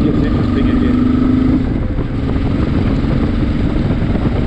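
Motorcycle engine running steadily while riding, mixed with rushing wind noise; the engine note eases off about a second and a half in.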